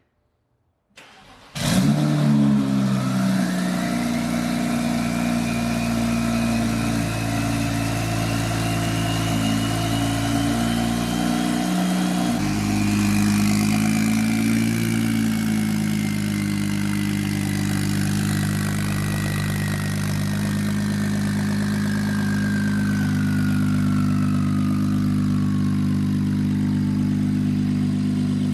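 BMW N54 inline-six, converted to a single turbo, starting up about a second and a half in and then idling steadily on freshly installed spark plugs and coil packs. The idle note shifts about twelve seconds in, and a faint whine rises and then slowly falls.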